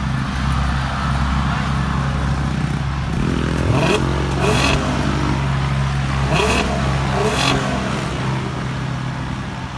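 A car engine running steadily, with a few short hissing bursts about four and about six to seven seconds in.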